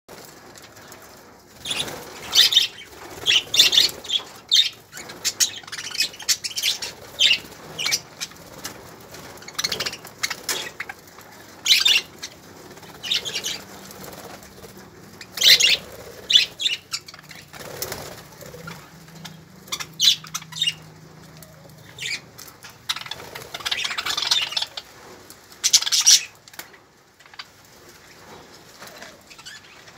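A flock of budgerigars flapping their wings in short flurries every second or two, mixed with chirps.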